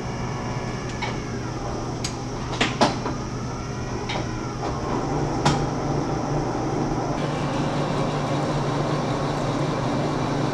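Monarch engine lathe: a few sharp clanks as its controls are set, then the spindle and four-jaw chuck spin up about five seconds in and run steadily with a low hum while the end of a steel bar is faced.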